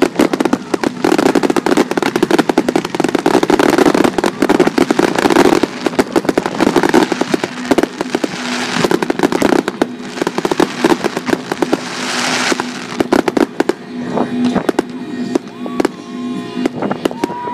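Fireworks finale barrage: aerial shells bursting in a dense run of rapid bangs and crackling, thinning out to scattered pops over the last few seconds.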